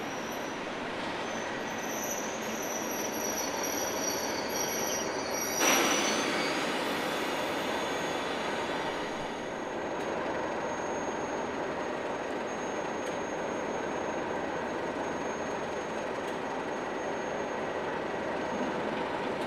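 Class 37 diesel locomotive, with its English Electric V12 engine, drawing in and stopping, its brakes squealing high-pitched for the first five or six seconds. About six seconds in comes a sudden loud rush of noise that fades over a few seconds. After that the locomotive stands with its engine running steadily and a faint high whine.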